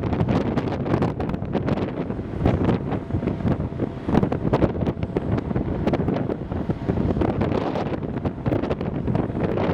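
Wind buffeting the microphone, a low rumbling noise that surges irregularly in gusts.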